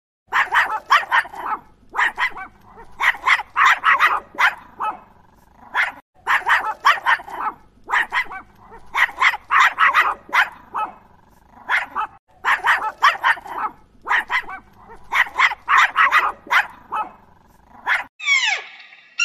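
Dogs barking in quick runs of short, sharp barks every couple of seconds, with brief pauses between runs. Near the end this gives way to a few high, falling calls.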